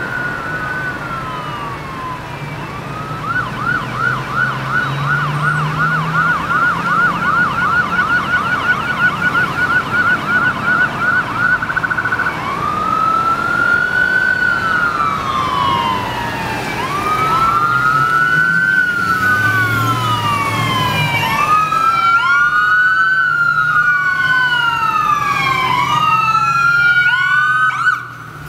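Ambulance electronic siren approaching: a wail, then a fast yelp of about four to five sweeps a second, then back to a slow rising and falling wail, with sweeps overlapping in the last several seconds. It cuts off suddenly just before the end.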